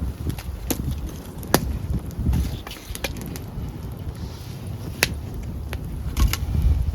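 Open wood fire crackling, with several sharp pops, the strongest about a second and a half and five seconds in, over a low rumble of wind on the microphone.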